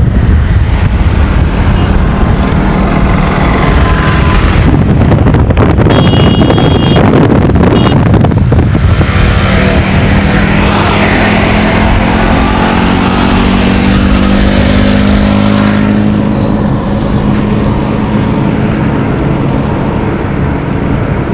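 Motorcycle engines running at speed with heavy wind and road noise from a moving car; in the middle stretch an engine note climbs in pitch as the bikes accelerate, and near the end the sound turns duller and quieter, as heard from inside the car.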